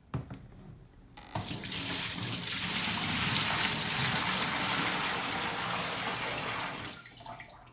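Water pouring steadily into the tub of an LG washing machine as it is filled for a test, starting abruptly just over a second in and tailing off near the end.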